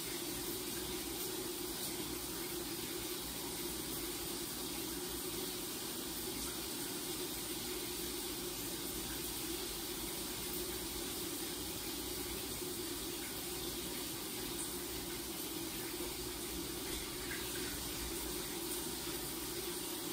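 Shower running steadily behind a glass shower door, a constant spray of water.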